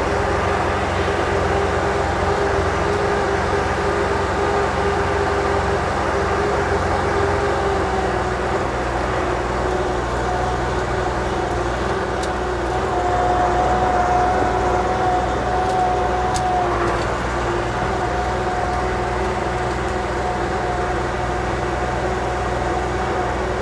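Wheeled skid steer's 50-horsepower LS Mtron engine running steadily at working throttle, with a steady whine over the drone that shifts in pitch partway through and grows a little louder for a few seconds past the middle.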